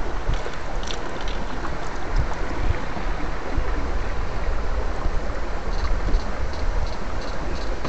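Steady rushing of shallow stream water around the electrofishing poles. Near the end a faint rhythmic ticking comes in, about three ticks a second.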